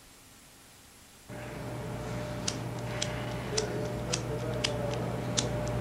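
Near silence, then about a second in a steady low hum comes up, and sharp ticks follow at roughly two a second.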